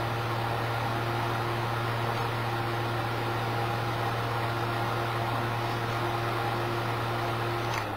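Electric fan running steadily at speed, a rushing airflow over a strong low hum, driving the wind-speed test on a cup anemometer. Near the end it is switched off with a click and its noise starts to die away.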